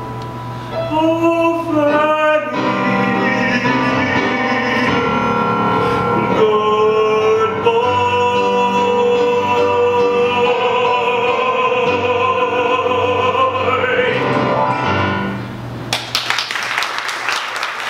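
A male tenor singing the closing phrases of a musical-theatre song with piano accompaniment, ending on a long held note. Audience applause breaks out near the end.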